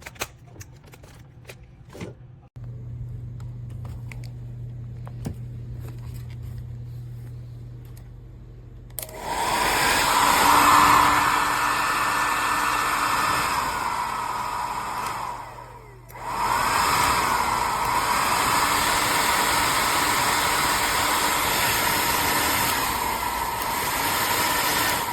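Slopehill 1800W ionic hair dryer blowing, coming on loud about a third of the way in, cutting out briefly midway and starting again. Before it comes on there are a few clicks and a low hum.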